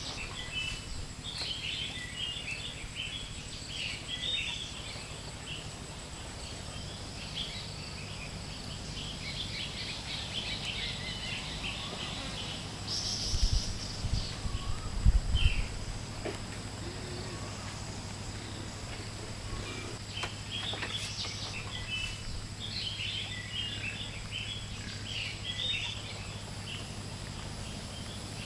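Birds chirping in scattered bursts over a steady high insect buzz. A few louder low thumps come about halfway through.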